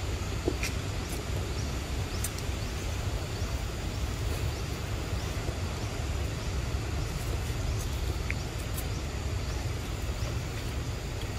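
Steady outdoor ambience: a constant low rumble under an even hiss, with a few faint clicks and short high chirps scattered through it.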